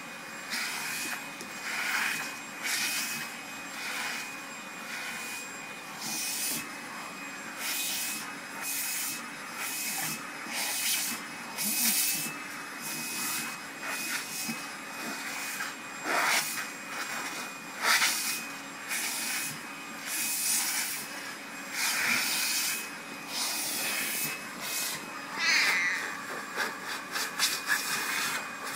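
Vacuum cleaner running with a steady high whine, its sound swelling in repeated whooshes every second or two as the hose brush nozzle is drawn along a cat's coat.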